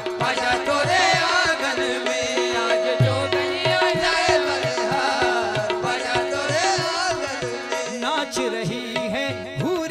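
Qawwali music: harmonium melody and drone over a quick, steady tabla rhythm.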